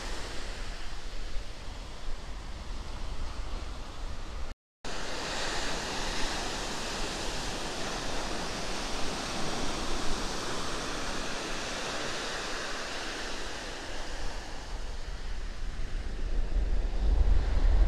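Sea surf breaking and washing up a sandy beach: a steady rushing wash. Wind buffets the microphone, heavier near the end. The sound cuts out completely for a moment about four and a half seconds in.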